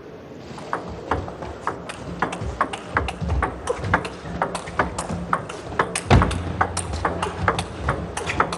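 Table tennis rally: the celluloid ball clicks sharply off rubber paddles and the table, a few hits a second, with a louder, deeper knock about six seconds in, over a low steady hum of the arena.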